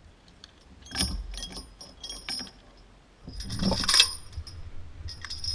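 Metal motorcycle lock and chain clinking and rattling as it is handled at the wheel: a short run of clinks about a second in, then a longer, louder rattle about three and a half seconds in.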